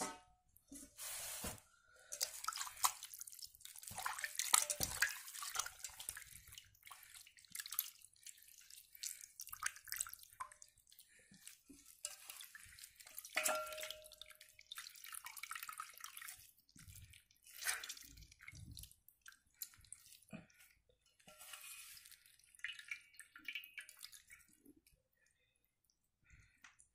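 Hands rubbing and squeezing raw mutton pieces in water in a steel bowl: irregular splashing and dripping. A short metallic ring from the steel bowl about halfway through.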